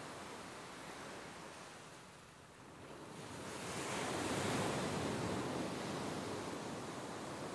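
Ocean surf on a beach: after a brief lull a wave swells and breaks about three to four seconds in, then slowly eases off.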